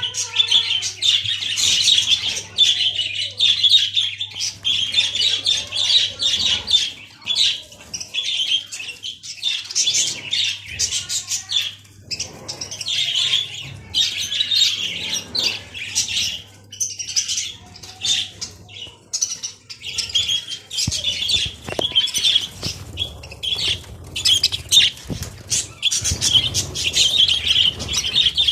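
Budgerigars chattering and warbling without a break, a dense stream of fast chirps and squawks. A low steady hum sits under the chatter and stops about two-thirds of the way through.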